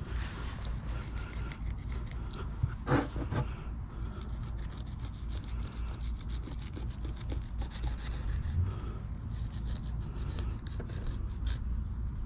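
Fillet knife cutting along a Spanish mackerel on a plastic cutting board: a run of small clicks and scrapes as the blade works through the fish, over a steady low rumble. A short, louder pitched sound comes about three seconds in.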